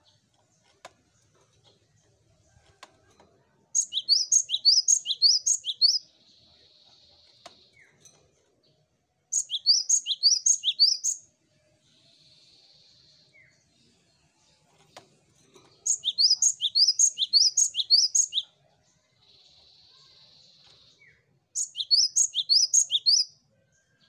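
Great tit singing: four bouts of rapid, repeated high notes, each lasting about two seconds. Between the bouts there is a softer, steady hissing sound and a few faint clicks.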